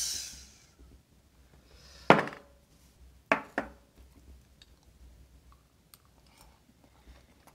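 Cutlery clinking on a plate while cutting a grilled rib-eye steak: one sharp clink about two seconds in, two more close together about a second later, then faint small clicks.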